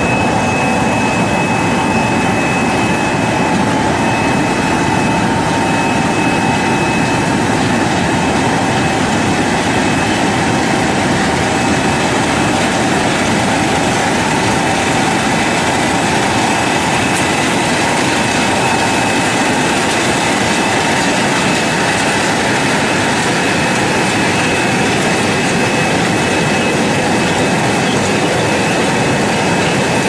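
Industrial air-bubble fruit and vegetable washing machine running: a steady, loud mechanical noise with a high whine.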